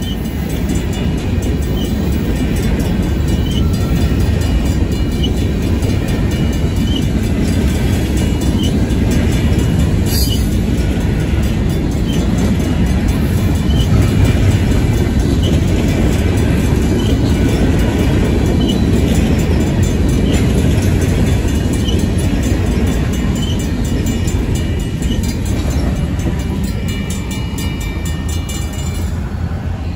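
Freight train of covered hopper cars rolling past a grade crossing, its wheels rumbling and clattering over the rails, with railroad crossing bells ringing steadily. The rumble eases a little near the end as the last cars go by.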